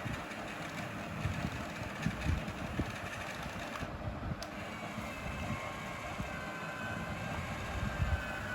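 Small electric motor and gearbox of an RC model truck running, with rumbling and scattered thumps from the wheels and chassis; about halfway through a faint high whine comes in and wavers.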